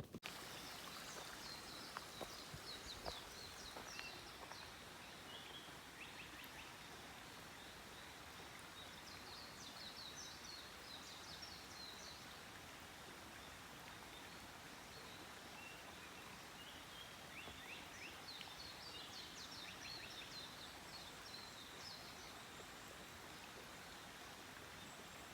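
Faint bird song in a few short phrases of quick chirps, repeating every several seconds over a steady background hiss of the open air.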